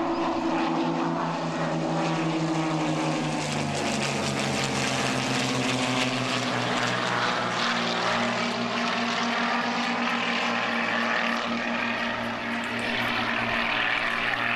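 A pair of Fuji T-3 trainers' piston engines and propellers droning as they pass overhead in formation. The engine note drops in pitch about four seconds in as they go by.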